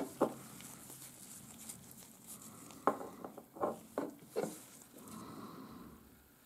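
Small handling noises from nail tools: a few light clicks and taps as gloved hands set the nail tip holder down and take up a gel bottle and brush, with a soft rustle shortly before the end.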